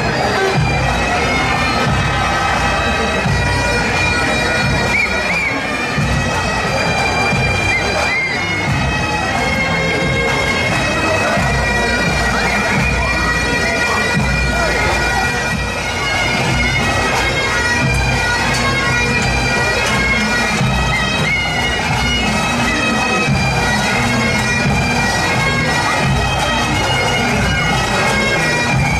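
Pipe band bagpipes playing a marching tune over steady, unbroken drones.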